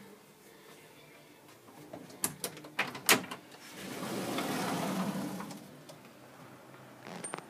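A glazed front door's handle and lock clicking several times, then the door opening with a rush of noise that swells and fades over about two seconds, and a small click near the end.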